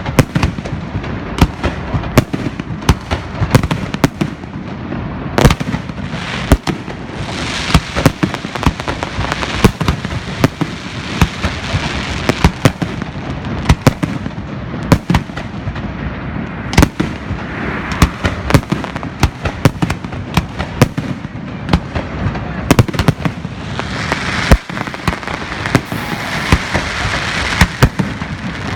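Aerial firework battery firing a rapid, continuous barrage of bangs, several a second, with two stretches of dense hissing crackle, one about a third of the way in and one near the end.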